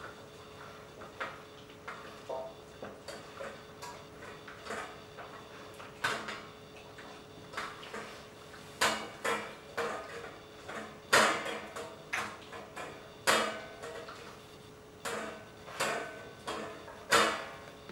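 Boxer puppy eating from a stainless steel bowl in a stand, its muzzle knocking the metal bowl into irregular ringing clinks and clatters. The clinks are light and sparse at first, then come faster and louder in the second half.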